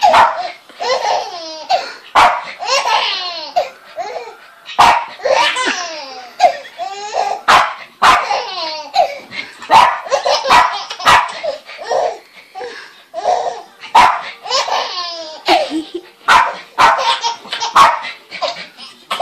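A baby laughing in repeated bursts of giggles and belly laughs, with a dog barking in short sharp barks between the laughs.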